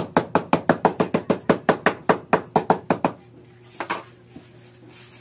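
Kitchen knife chopping rapidly on a cutting board, about six chops a second, stopping about three seconds in; one more knock follows about a second later.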